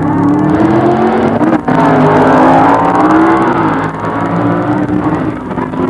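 Drag race cars' engines running at high revs and accelerating, a loud pitched engine note that wavers and bends in pitch. There is a brief break in the sound about one and a half seconds in.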